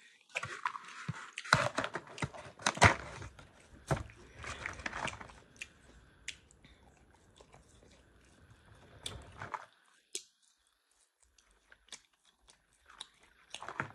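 Close-up eating sounds: chewing and crunching on fries, with sharp clicks and knocks from handling the cardboard takeout box, loudest about two seconds in and sparser near the end.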